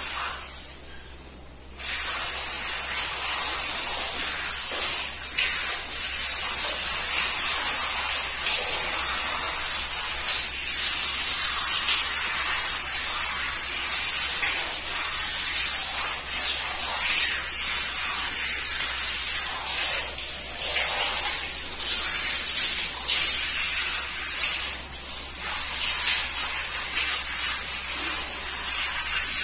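Handheld shower head spraying water, turned on about two seconds in and running steadily as it rinses shampoo out of long hair.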